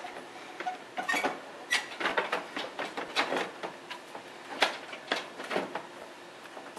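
Plastic truck grille being pressed and seated into the front end by hand, making a run of irregular sharp clicks and taps.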